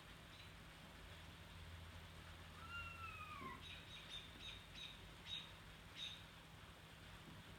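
Eastern screech owl giving one faint, smooth descending whistled call, about a second long, near the middle. A quick run of about seven sharp high ticks follows.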